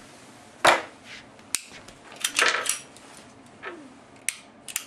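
Sig Sauer P938 pistol being unloaded by hand: a series of sharp metal clicks and clacks, the loudest about a second in, as the magazine is dropped and the slide is worked to clear the chamber.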